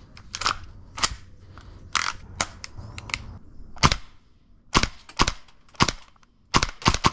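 Gas blowback airsoft rifle fired semi-automatically: about a dozen single sharp shots at irregular spacing, each with the snap of the bolt cycling.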